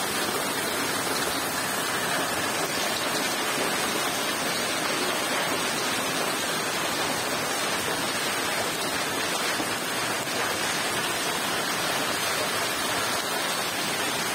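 Hail and rain falling steadily on brick and concrete ground during a hailstorm, a dense, even hiss that does not let up.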